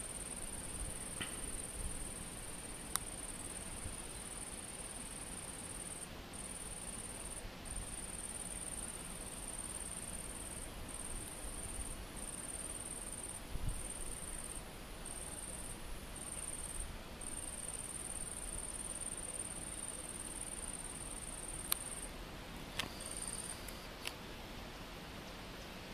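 An insect calling: a continuous high-pitched buzz broken by short, irregular pauses. It stops near the end, comes back once briefly, then falls silent. A few faint clicks are scattered through it.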